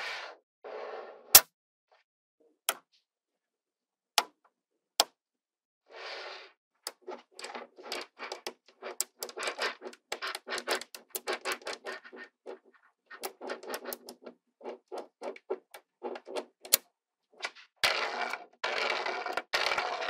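Small neodymium magnetic balls clicking as they snap onto one another: a few sharp single clicks at first, then quick runs of small clicks as balls are added one after another, and a longer rattle of many balls shifting together near the end.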